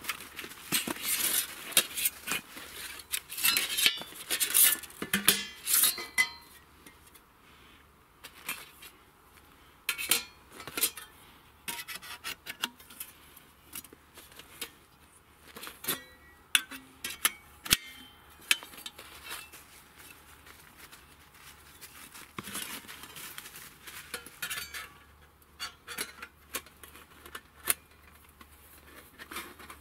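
Thin stainless-steel plates of a Skotti folding grill clinking and clanking against each other as they are handled and slotted together, with denser handling rustle in the first few seconds and scattered single clinks after.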